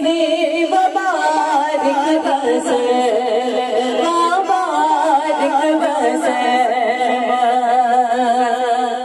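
Women singing a devotional naat, melodic recitation with long wavering held notes and no instruments.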